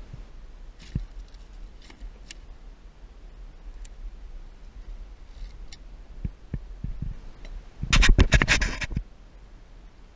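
A redfish being taken out of a landing net on a plastic kayak deck: scattered light taps and scrapes of net, hands and fish, then near the end a burst of loud, rapid knocking and rattling lasting about a second.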